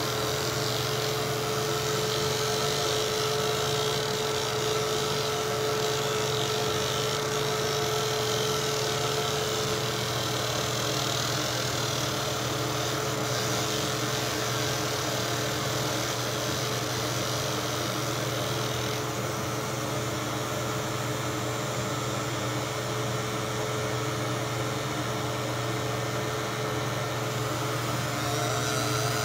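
Laser engraving machine running while its beam marks a 1911 pistol slide: a steady machine hum with one constant mid-pitched tone, and a higher hiss that eases off a little about two-thirds of the way through.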